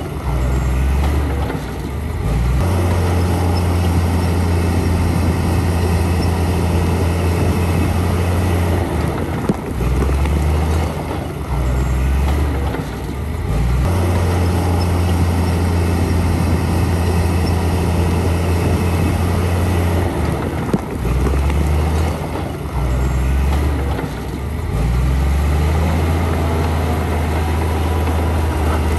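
Heavy earthmoving machinery's diesel engine running, its low drone shifting and dipping every few seconds as the load changes. Two brief sharp clicks, about a third and two-thirds of the way through.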